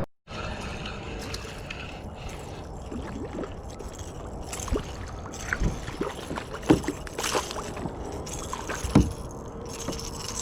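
Water splashing and sloshing against a plastic kayak, with scattered sharp knocks, the loudest a few seconds apart in the second half.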